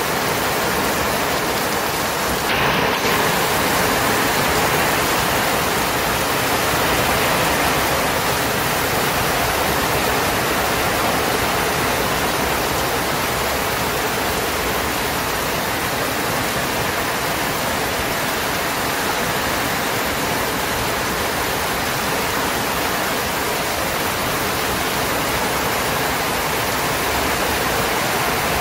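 Steady rushing hiss of water with no beat or pitch, and a brief sharper high-pitched noise about three seconds in.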